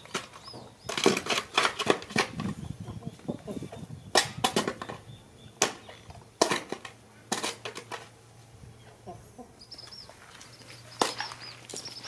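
Irregular sharp clicks and smacks from eating at the table: chopsticks, a ceramic bowl and chewing. A few faint high chirps come around ten seconds in.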